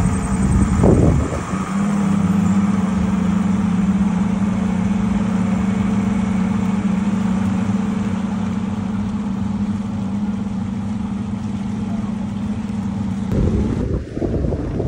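Twin Evinrude Ocean Pro FICHT V6 two-stroke outboard motors running at idle with a steady hum. Near the end, wind buffeting the microphone takes over.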